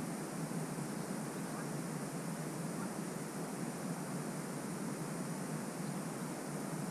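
Steady wind noise, an even hiss with no distinct events.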